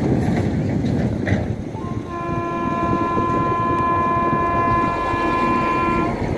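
Electric locomotive horn, likely the WAP-4's, sounding one long steady blast of about four seconds that starts about two seconds in and cuts off near the end, over a steady low background rumble.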